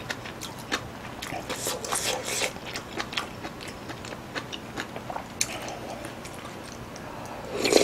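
Close-miked chewing and wet mouth sounds of a person eating a spoonful of stew and rice: many small lip smacks and clicks, with a louder burst near the end.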